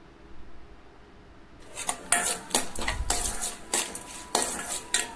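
Steel spatula scraping and stirring peanuts, split dals and mustard seeds around a stainless steel kadai as they roast, in a run of irregular sharp metallic scrapes and clinks that starts a little under two seconds in.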